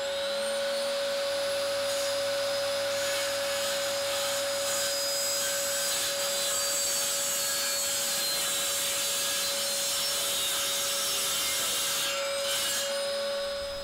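Sliding mitre saw running with a steady motor whine and the rasp of its blade as the head is brought down to cut. The sound stops near the end.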